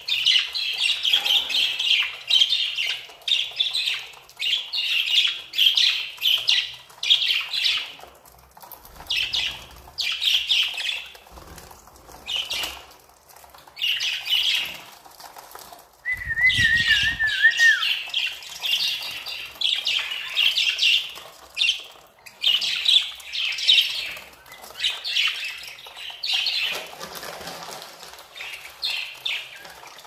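A flock of budgerigars chattering and warbling, in bursts that come and go every second or two.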